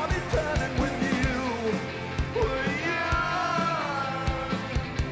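Live rock band playing, with drums, electric guitars and bass under a sung vocal line. The drums keep a steady beat throughout.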